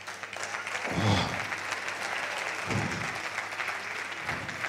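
Audience applauding, the clapping swelling about a second in and holding steady, with a few short voice sounds over it.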